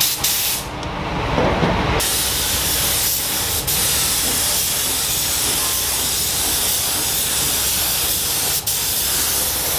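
Compressed-air paint spray gun hissing steadily as paint is sprayed onto a car's body, starting about two seconds in and breaking off for a moment near the end.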